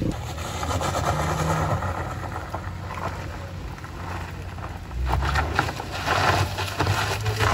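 Front-wheel-drive Daihatsu Sigra MPV climbing a steep, wet gravel-and-mud slope: the engine runs under load while the tyres crunch and crackle over loose stones. The crunching grows louder about five seconds in.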